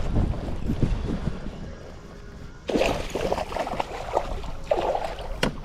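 Wind and water noise around a kayak, with irregular small knocks and splashes. It fades for a moment, then comes back abruptly about halfway through.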